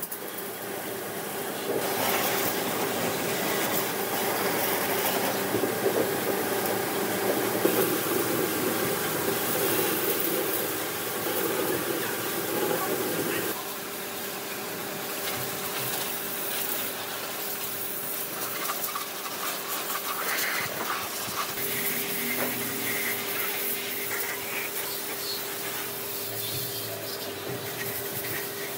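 A motor-driven workshop machine running steadily with a constant humming tone. Rougher working noise over it is louder at first and eases about halfway through.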